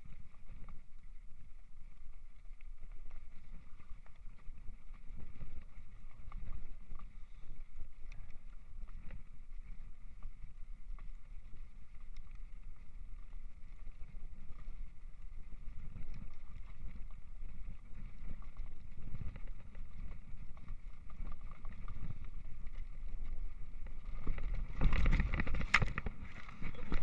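Mountain bike rolling fast over a rough dirt track, a steady rumble from the tyres and frame. Near the end, a louder jumble of hits and rustling as the bike crashes into long grass, the tyres having lost grip on the dewy ground.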